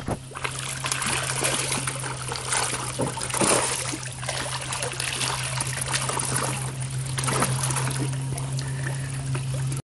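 Water splashing and churning against the side of a small boat as fish thrash at the surface for food thrown in, over a steady low hum.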